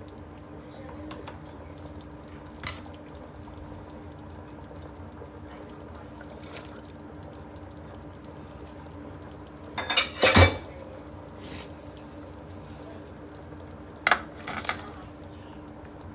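Cookware clattering: a few light clinks, a loud cluster of knocks about ten seconds in and two more near the end, over a steady low hum.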